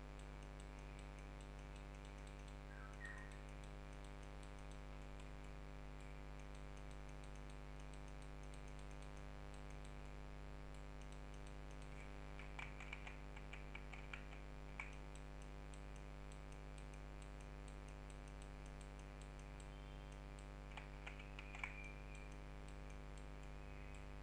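Quiet room tone with a steady low hum, broken by two short runs of quick clicks from a computer mouse and keyboard: one about halfway through, and one near the end.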